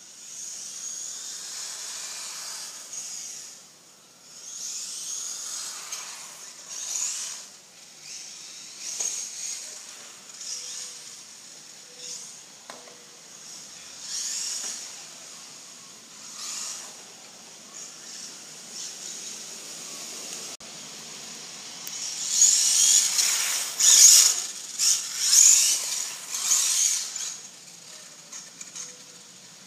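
Traxxas 1/16 Slash VXL radio-controlled truck driving on a wet road: its brushless electric motor whirs and its tyres hiss through the water, swelling and fading with each pass. The loudest run of bursts comes about three quarters of the way through.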